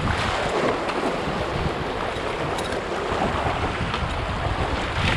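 Whitewater rushing over rocks in a shallow river rapid, a steady churning, with low wind rumble on the microphone.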